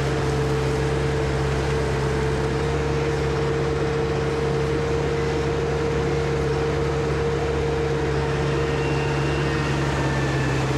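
Tractor engine running at a steady speed, an even drone with a constant pitch and no change in level.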